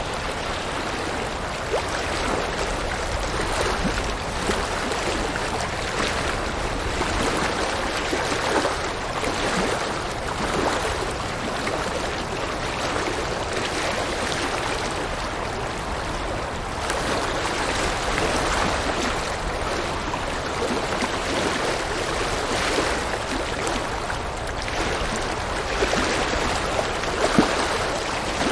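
River water flowing steadily over rocks: a continuous rushing babble with small splashes and gurgles.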